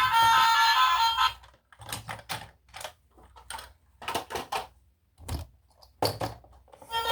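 Music cuts off about a second in. It is followed by a few seconds of scattered light clicks and knocks, like small objects being handled, before the music starts again near the end.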